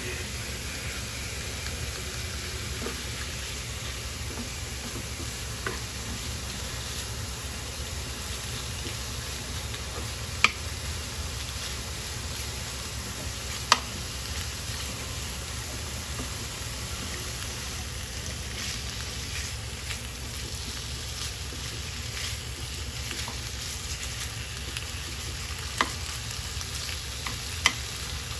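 Thin slices of pork thigh sizzling steadily as they fry in a nonstick frying pan, stirred and spread with a wooden spatula. A few sharp knocks of the spatula against the pan stand out above the sizzle.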